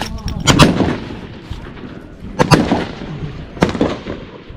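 Three rifle shots, the first about half a second in and the last two about a second apart, each followed by an echo.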